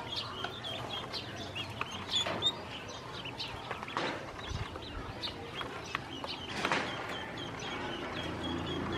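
A brood of ducklings peeping, many short high chirps in quick succession, as they feed together from a dish, with a few sharp taps among the peeps.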